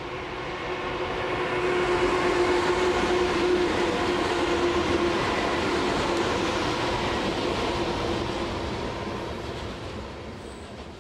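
Electric freight locomotives passing with a steady electric whine over the rumble of their wheels, followed by a string of coal hopper cars rolling by on the rails. The sound is loudest about two seconds in and fades slowly as the train goes past.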